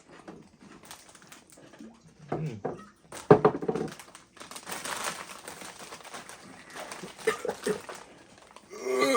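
A person gagging, with short throaty retching noises a few times; the loudest comes about three and a half seconds in.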